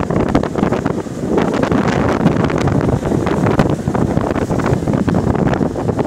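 Loud wind buffeting the phone's microphone on a moving ship's stern, over the rush of the ship's churning wake.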